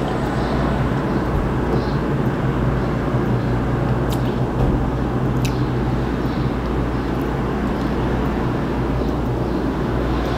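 Steady rushing noise with a low hum, like a running machine, with two faint clicks about four and five and a half seconds in.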